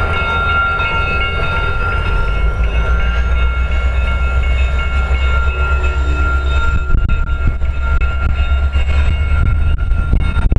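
Diesel freight locomotives running with a heavy low rumble and a steady high whine.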